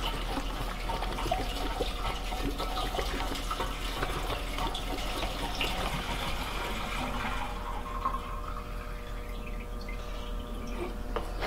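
Fuel pouring from a jug through a flexible spout into a motorcycle's fuel tank, a steady liquid rush into the filler neck that thins out about seven and a half seconds in.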